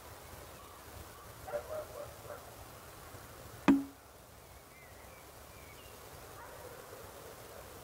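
Countryside ambience with faint high bird chirps and a few short lower calls about a second and a half in. About halfway through comes one sharp knock, the loudest sound, with a brief low ring after it.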